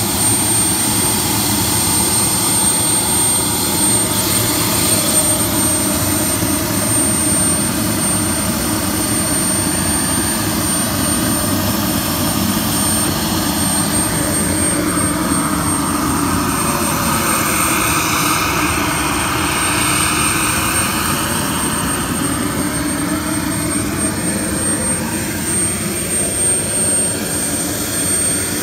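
RC model jet's K-100 turbine engine running steadily: a rushing exhaust with a thin, high, steady whine.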